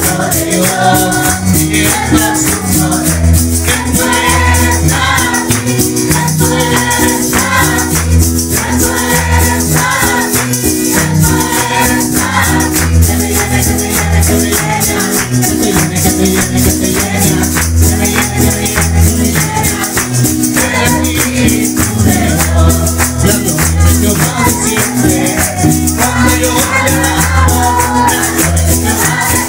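Live worship music: a congregation singing together over acoustic guitar and electronic keyboard, with hand clapping and a plastic shaker rattling steadily on the beat.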